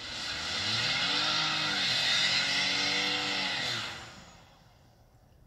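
Ford F-150's 2.7-litre twin-turbo EcoBoost V6 revving hard through a burnout, the rear tyres spinning and hissing on the road. The revs climb and drop twice, then die away about four seconds in.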